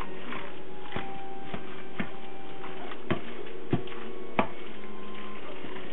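Guacamole being stirred and mashed in a bowl: a utensil knocks against the bowl several times, the loudest three knocks a little past the middle, over a steady background of held tones.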